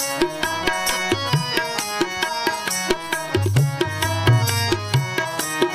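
Instrumental break in a devotional hymn: sustained melody notes held over a steady pattern of hand-drum strokes, with deep bass-drum strokes that bend in pitch.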